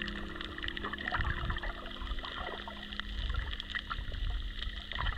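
Underwater camera audio: water moving and rumbling against the camera, with a faint scattered crackle of clicks.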